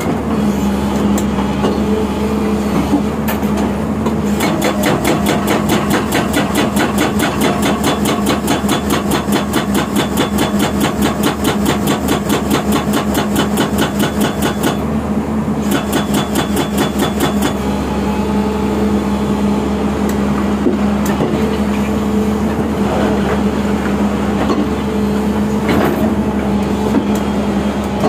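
Excavator-mounted SSI S81 hydraulic breaker hammering rock in a rapid, even rhythm over the steady running of the excavator's diesel engine. The hammering starts about four seconds in, falters briefly near the middle and stops about two-thirds of the way through, leaving the engine running.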